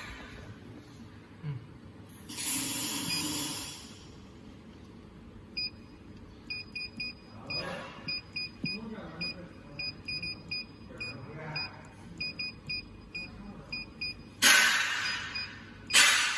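Short electronic key-press beeps from a touchscreen control panel as its on-screen keypad is tapped, coming irregularly at about two or three a second through the middle. A burst of hiss sounds about two seconds in, and two louder, sudden bursts of hiss come near the end.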